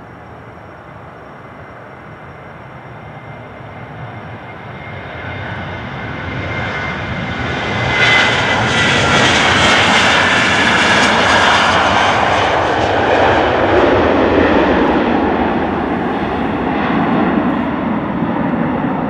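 Boeing 737-800's CFM56-7B jet engines at takeoff thrust during the takeoff roll and climb-out. The noise builds, peaks about eight seconds in with a whine that drops in pitch as the aircraft passes, then deepens as it lifts off and climbs away.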